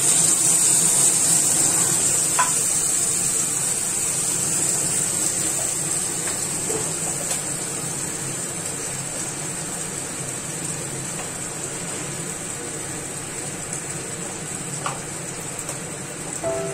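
Wet spice paste and tomato pieces sizzling in hot oil in a nonstick wok, the sizzle slowly dying down. A faint light tap sounds about two seconds in.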